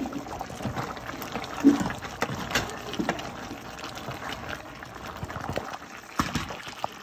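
Pot of beef boiling on a stovetop, the liquid bubbling steadily, with scattered knocks against the pot; the loudest comes a little under two seconds in.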